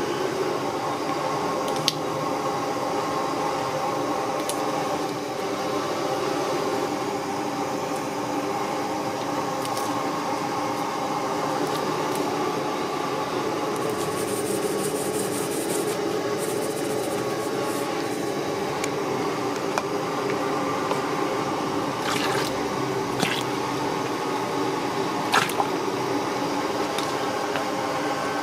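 Large pot of soup broth steaming, with broth being ladled and poured, over a steady hiss and hum, and a few sharp clinks.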